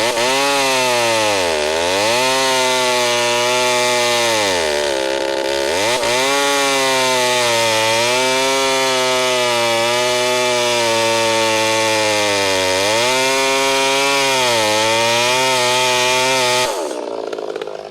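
Gasoline chainsaw at high throttle cutting into wood, its engine pitch sagging and recovering several times as the chain bites. The chain has just been sharpened and is being tested for how well it cuts. The engine drops away sharply near the end.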